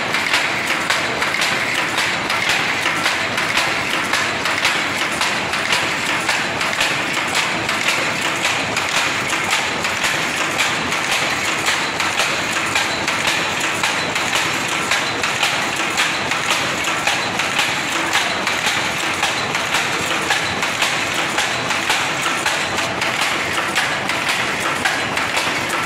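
Power loom running at speed, a steady rapid mechanical clatter of shuttle, sley and harness strokes as it weaves.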